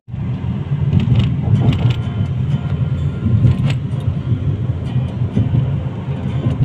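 Car cabin noise while driving: a steady low rumble of engine and road noise heard from inside the car, with a few light clicks.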